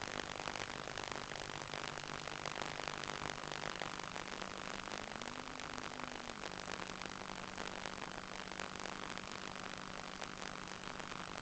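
Hiss-laden audio from the model boat's analog FPV link, with a faint low motor hum that drops in pitch about four seconds in, then briefly rises and falls back near the middle.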